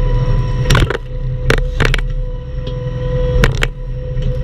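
Bobcat E10 mini excavator's diesel engine running steadily with a constant whine, while sharp knocks come in pairs: near the first second, around a second and a half in, and again about three and a half seconds in.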